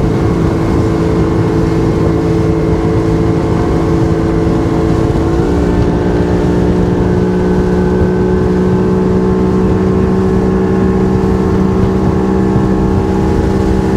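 Motorboat engine running steadily under way, with a small step in its pitch about five seconds in.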